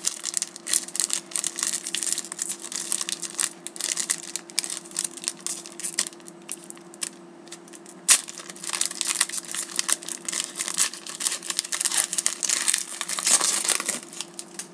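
Foil wrapper of a hockey card pack crinkling and tearing as it is worked open by hand, with one sharp snap about eight seconds in.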